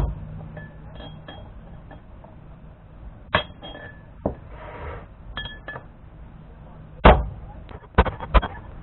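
Hammer blows on an iron punch driving a damaged bearing race out of a Dana 44 front wheel hub, each strike a sharp metallic clink with a brief ring. A single blow, then a couple more a few seconds later, then a quicker run of blows near the end.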